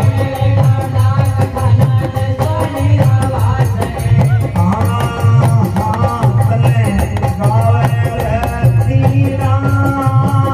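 Live Rajasthani devotional bhajan music: a male voice singing over a steady, driving drum beat, with hand-held cymbals played by dancers.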